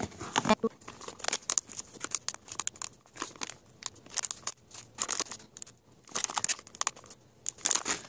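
Clear plastic packaging bag crinkling and rustling in quick, irregular bursts as it is handled and opened and the boxed product is pulled out.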